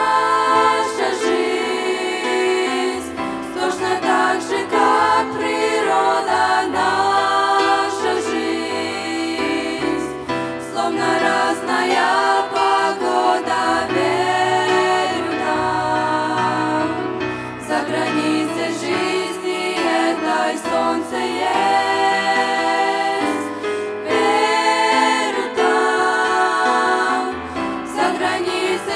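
A group of teenage girls singing a Christian song together into handheld microphones, amplified through a sound system.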